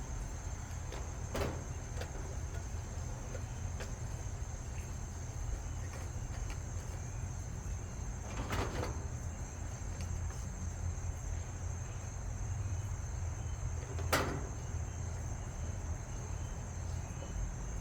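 GE top-load washing machine running with a steady low hum, with three short clicks or knocks. Crickets chirp in a steady high drone behind it.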